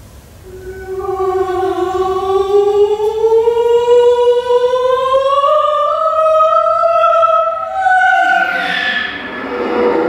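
A bowed string instrument holds one long tone with rich overtones, gliding slowly upward in pitch for about seven seconds. Near the end it breaks into a rougher, scratchier cluster of tones.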